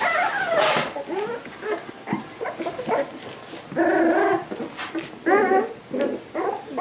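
A litter of young American water spaniel puppies whimpering and whining as they scramble over one another. The calls come in many short, overlapping bursts, with two longer, louder whines about four and five and a half seconds in.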